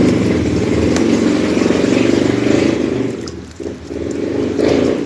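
A motor vehicle's engine running loud and steady, dropping away about three and a half seconds in.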